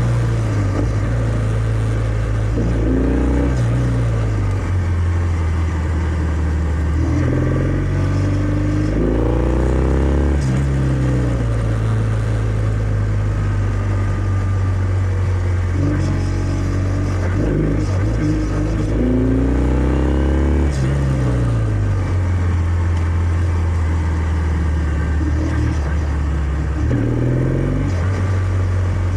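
Kawasaki W650's air-cooled parallel-twin engine running through its stock exhaust while riding, the note rising in pitch under acceleration and dropping back several times.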